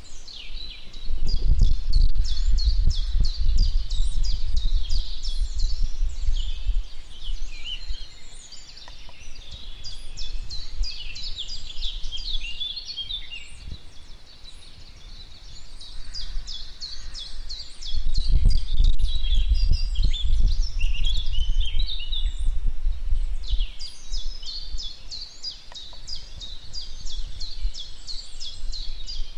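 Songbirds chirping and trilling continuously. Two long stretches of low wind rumble on the microphone, about a second in and again about eighteen seconds in, each lasting around six seconds and louder than the birdsong.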